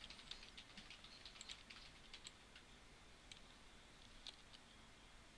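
Faint, scattered clicks of a computer keyboard and mouse: a few quick taps at the start, then single clicks every second or so, over low hiss.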